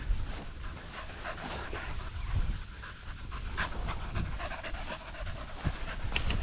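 Small dogs panting as they run through long dry grass close by, with irregular rustles and ticks of grass brushing and a low rumble underneath.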